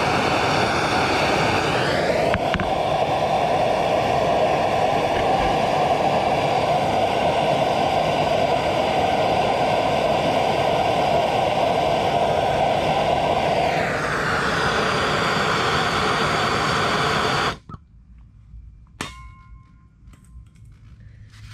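Gas hand torch burning with a steady loud hiss while its flame heats a casting flask, then shut off abruptly about 17 seconds in. A few faint clicks follow.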